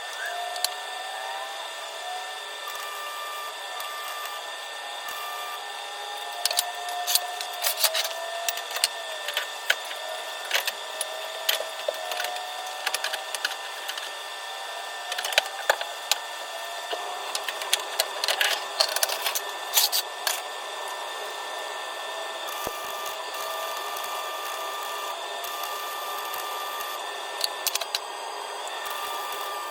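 Irregular clusters of sharp clicks and crackles from work on a steel exhaust, such as tack welding and fitting pipe, mostly through the middle stretch, over a steady background hum.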